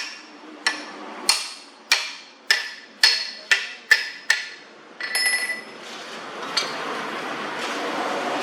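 Hammer striking steel about nine times, roughly two blows a second, each blow ringing briefly. A ringing metallic clang follows about five seconds in, then a steady noise.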